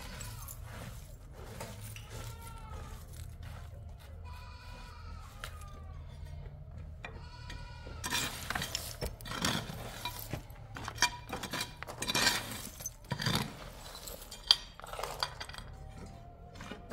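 Livestock bleating several times in short wavering calls during the first half. From about halfway, ceramic wall tiles clink and scrape against each other and against loose rubble as they are handled, with one sharp clink a few seconds before the end.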